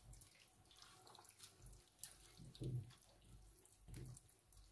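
Near silence, with a few faint wet scrapes of a wooden spoon stirring thick chili con carne (minced beef in tomato sauce) in a white baking dish, about halfway through and again near the end.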